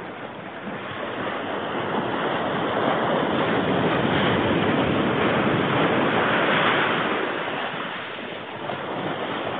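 Sea surf breaking and washing up the beach: a steady rush that swells to its loudest past the middle and then ebbs.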